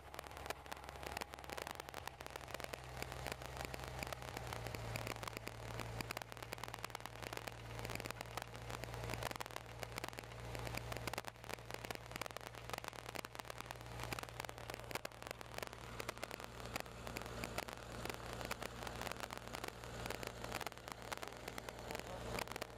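Light aircraft's piston engine and propeller heard from inside the cabin while taxiing, a steady low drone that grows louder about five seconds in, with a crackling hiss over it.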